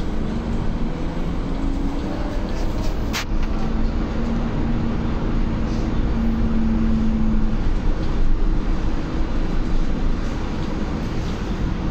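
Cabin noise of a Solaris Urbino 9 LE electric battery bus on the move: steady low road and tyre rumble with a humming tone from the electric drive that shifts slightly in pitch. A short sharp click sounds about three seconds in.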